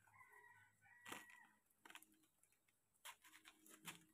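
A faint rooster crowing once for about a second and a half, followed near the end by a quick run of sharp clicks and snaps as the banana trunk is pulled apart by hand.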